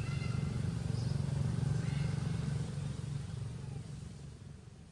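Motor vehicle engine running steadily with a low-pitched sound, fading out over the last two seconds.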